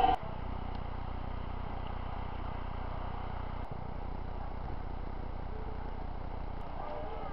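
Steady low engine hum, like a vehicle idling.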